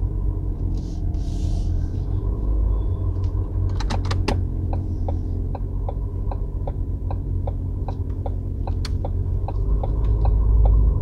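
Car's turn indicator ticking evenly, about two clicks a second, starting about four seconds in, over the low rumble of the engine and road inside the cabin.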